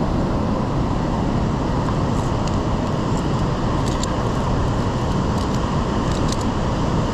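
Steady, loud rushing roar of a whitewater river in the gorge below, with a few faint metallic clinks of via ferrata carabiners on the steel cable around the middle.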